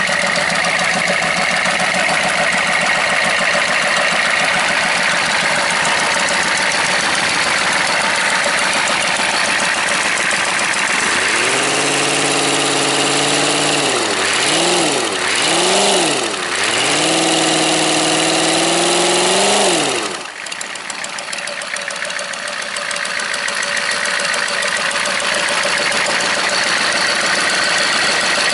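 Freshly rebuilt Chevrolet 6.5 L turbo-diesel V8 running on a test stand, idling with diesel clatter. Partway through it is revved by hand at the injection pump lever: the pitch rises, dips and recovers twice, holds higher for a few seconds, then drops back to idle.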